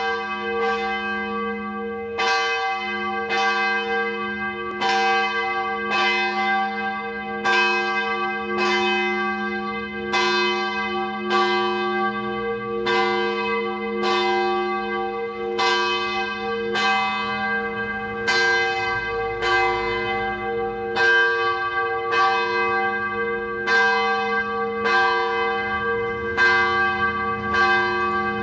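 A church bell ringing, struck steadily a little over a second apart, with each strike's ring carrying on under the next.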